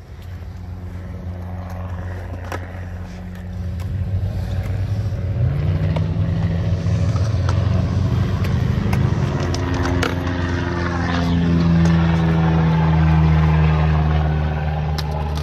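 Low-flying propeller airplane passing overhead: its engine drone grows steadily louder, and its pitch drops about two-thirds of the way through as it goes by. A few sharp skateboard clacks sound under it.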